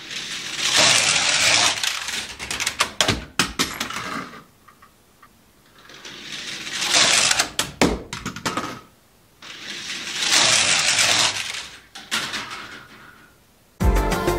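Small LEGO test car rolling along a loop track built from LEGO bricks: a loud plastic rattle full of sharp clicks that swells and fades three times. Music starts just before the end.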